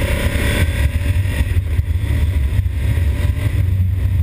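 Honda Africa Twin motorcycle's parallel-twin engine pulling hard under acceleration, mixed with wind rush over the camera microphone, with a deep steady rumble throughout.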